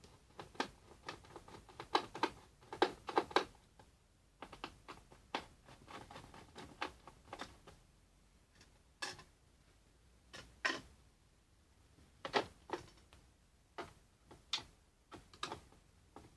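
Irregular clicks and light knocks of plastic and metal as the hard drive is taken out of a Toshiba Satellite L350D laptop. They come in a dense cluster for the first few seconds, then more sparsely.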